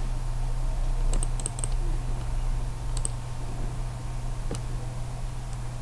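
Scattered clicks of a computer keyboard and mouse: a quick run of about four just after a second in, a pair around three seconds, then single clicks, over a steady low electrical hum.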